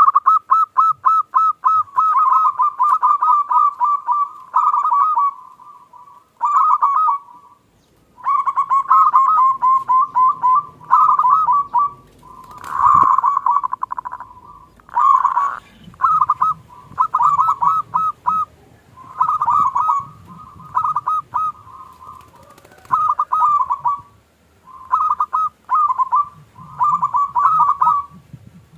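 Local zebra dove (perkutut) cooing in repeated phrases of quick, staccato coos. Each phrase lasts a second or two, with short pauses between. It is sung in the small 'klung' voice style prized by perkutut keepers.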